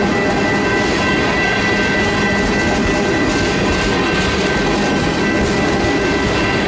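Freight train of tank cars rolling past steadily: a continuous loud rumble of steel wheels on rail, with a steady high whine over it.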